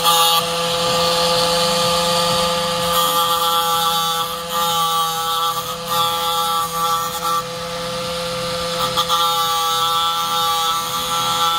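Angle grinder running steadily, its thin disc grinding the cutting teeth of a chainsaw chain to sharpen them: a constant motor whine with a grinding hiss that drops out and returns several times as the disc moves from tooth to tooth.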